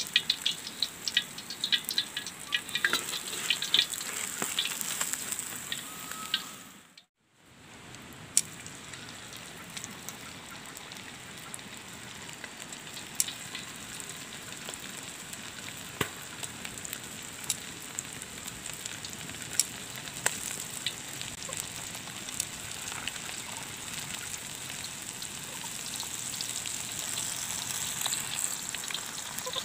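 Hot cooking oil frying in a steel wok: a steady sizzle with scattered crackles, busier and louder over the first few seconds while a fried tilapia is still in the oil. The sound cuts out briefly about seven seconds in, then the oil alone goes on sizzling evenly.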